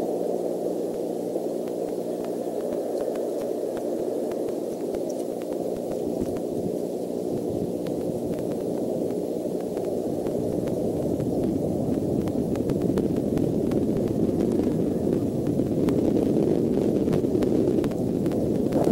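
Steady low rushing noise from the outdoor camera's microphone, with a faint hum in the first half. It grows rougher and a little louder toward the end.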